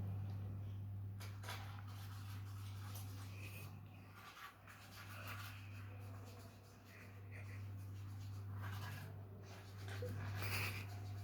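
Pet parrots moving about: scratching and light tapping sounds with a few short, soft chirps, over a steady low hum.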